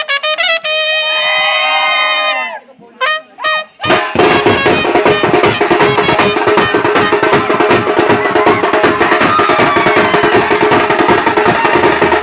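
Brass band music: a trumpet-led phrase of held, bending notes, a brief break with a few short notes, then from about four seconds in the full band plays loudly over a steady drum beat.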